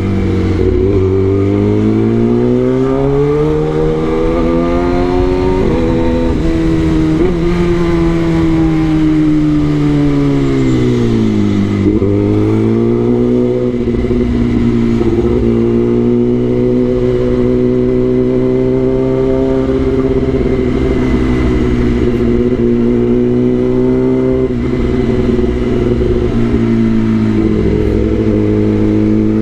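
Kawasaki ZX-10R's inline-four engine running under way. Its pitch climbs over the first few seconds, drops back about eleven seconds in, then holds steady at cruising speed.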